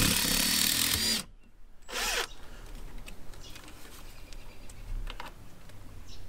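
Power drill driving a deck screw into a composite deck board. It runs hard and stops about a second in, then gives a second short burst about two seconds in. Light clicks and knocks follow.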